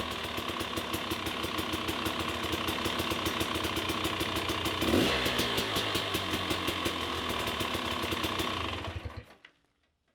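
Freshly rebuilt dirt bike engine running well on its first startup, with a short rise in revs about five seconds in. It cuts off about nine seconds in.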